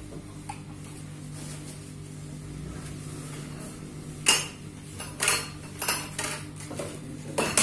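Metal tubes and fittings of a child's tricycle knocking and clinking as they are handled and fitted together during assembly: a handful of sharp knocks in the second half, the loudest about four seconds in and just before the end, over a steady low hum.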